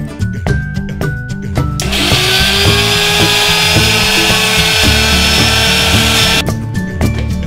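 Electric mixer grinder's motor running, blending strawberries in its steel jar: it starts about two seconds in, runs steadily with a faint whine for about four and a half seconds, and cuts off suddenly. Background music plays throughout.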